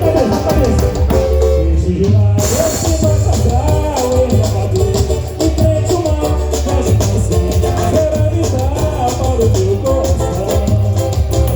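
Samba music with a steady percussion beat under bass and melody instruments. A short, noisy hiss-like burst comes about two seconds in.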